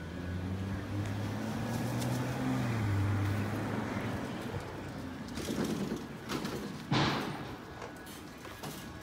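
A vehicle's engine drones low in the street, its pitch rising a little and then dropping about three seconds in. About seven seconds in there is a short, loud rush of noise.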